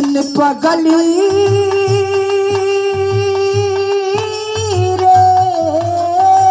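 A woman singing a Bhojpuri Birha folk song into a stage microphone, holding long drawn-out notes with a short dip in pitch near the end, over a steady drum beat.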